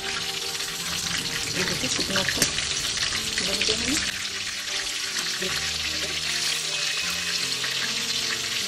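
Marinated, coated chicken pieces deep-frying in oil on high heat, a dense steady sizzle. There are a few sharp clicks of metal tongs as the pieces are turned, about two and a half seconds in.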